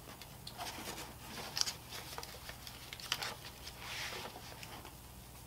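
Faint rustling of papers and cardboard with a few light knocks, as items are rummaged through and lifted out of a cardboard box.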